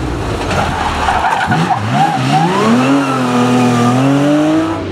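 Rally car engine: the revs drop sharply about a second and a half in, then climb steadily as the car accelerates hard. The tyres squeal briefly before the revs drop.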